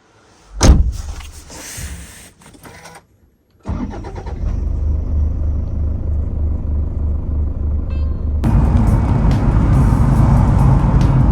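A single sharp knock, then a few seconds later a car engine starts and runs with a steady low rumble, growing louder near the end.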